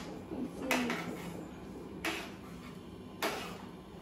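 A steel spoon clinking against a pot while stirring pasta: three sharp knocks about a second apart.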